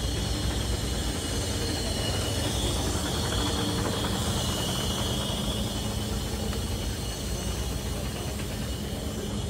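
Heavy truck's diesel engine running steadily at a low rumble, with a steady hiss above it.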